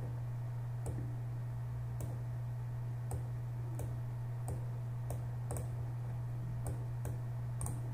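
Computer mouse clicking about a dozen times at irregular intervals over a steady low electrical hum.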